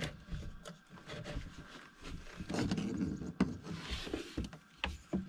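Hands working on plumbing: irregular rubbing and scraping, with a few sharp clicks and knocks toward the end.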